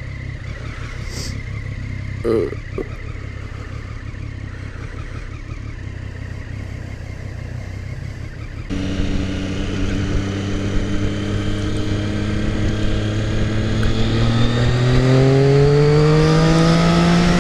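Triumph Street Triple R's 675 cc inline-three engine ticking over while stopped in traffic. A little under halfway through the sound switches abruptly to the engine running under way, then its pitch rises steadily over the last few seconds as the bike accelerates.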